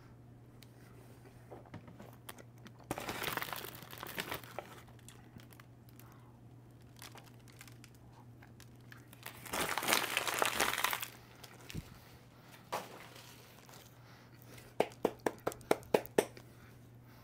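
Plastic snack wrappers crinkling and being torn open in two bursts, then a quick run of about eight sharp crackles near the end.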